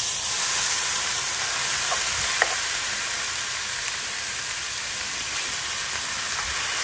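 Raw beef cubes dropped into a hot nonstick wok of fried kroeung paste, starting a loud, steady sizzle the moment they land, with a sharp click about two and a half seconds in. Near the end the meat is stirred with a spoon.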